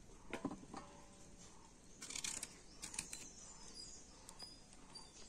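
Knife cutting through firm raw green mango held in the hand: a few crisp clicks and one short rasping slice about two seconds in.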